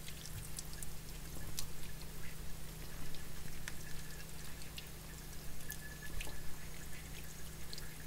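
Tap water running and dripping as wet sphagnum moss is worked off an orchid's roots by hand, with scattered small drips and clicks throughout.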